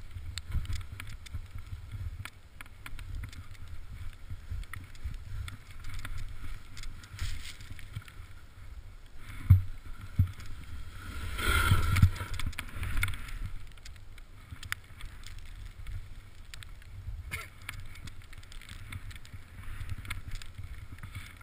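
Wind rumbling on the microphone of a body-worn action camera as a snowboard rides through deep powder snow, the board's hiss on the snow swelling into a louder rush midway through. A few sharp knocks sound around that loud stretch.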